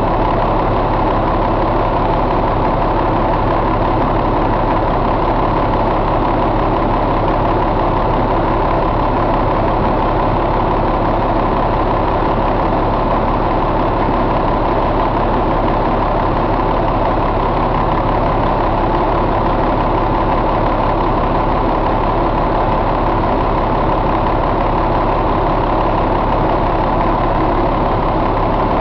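1998 Caterpillar C12 inline-six diesel truck engine idling steadily, at an even speed with no revving.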